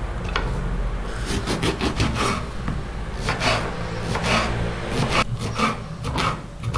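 Kitchen knife slicing through an aubergine and striking a wooden cutting board: a rapid series of cuts, several a second, starting about a second in.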